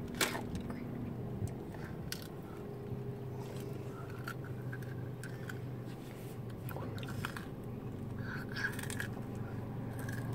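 A child chewing crunchy fried banana fritters, with a plastic bag crinkling now and then, over a steady low hum in the car cabin.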